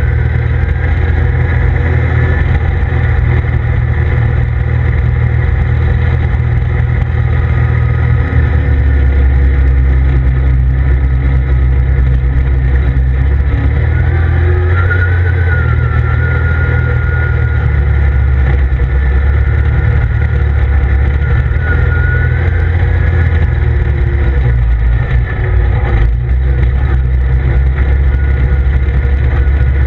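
CF Moto ZForce 800EX side-by-side's V-twin engine running steadily under way on a dirt track, heard from inside the open cab. The low drone gets a little heavier about eight seconds in, with a faint higher whine wavering in pitch above it.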